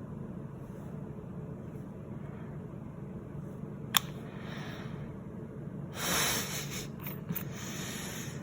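Steady low background hum, with one sharp click about four seconds in, a short breathy hiss about six seconds in, and a few faint ticks after it.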